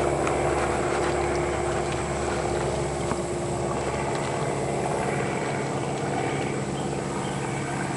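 Steady drone of a motorboat engine running at an even speed, a hum that holds one pitch throughout.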